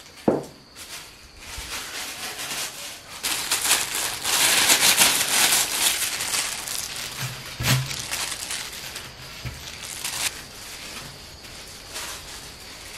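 Thin plastic crinkling and rustling as it is handled by hand, densest in the middle stretch, with a few light knocks.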